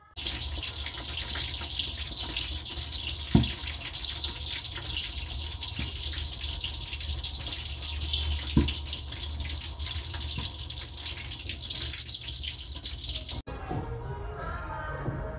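Chicharon bulaklak (pork intestine) deep-frying in hot oil in a wok, a loud steady sizzle with two sharp pops about three and eight seconds in. The sizzle cuts off suddenly near the end.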